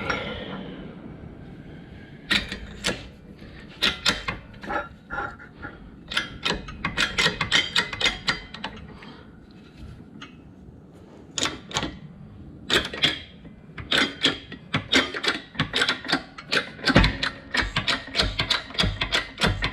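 Metal parts and tools clinking and knocking, in irregular clusters of sharp clicks with a short ring, from steel workshop parts being handled and set down.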